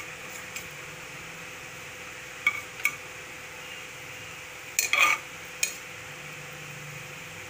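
A few sharp pops from mustard seeds starting to crackle in hot oil in a small aluminium pressure cooker, with a metal ladle clanking against the pot about five seconds in, the loudest moment. A steady faint hum runs underneath.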